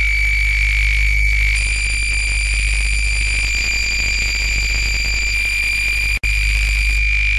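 Synthesized stereo audio signals of an XY-oscilloscope program tracing a rotating wireframe torus: a continuous electronic buzz, a low drone under a steady high whine. The tone brightens about a second and a half in and cuts out for an instant about six seconds in.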